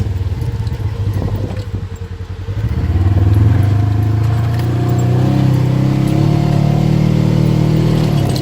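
ATV engine running, easing off for about a second and then picking back up and holding a steady pace with small rises and falls in pitch.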